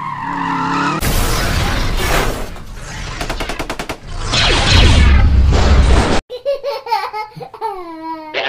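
Edited-in action sound effects: rapid machine-gun fire followed by a loud explosion with a deep rumble that cuts off suddenly, then a few gliding, voice-like cartoon sounds near the end.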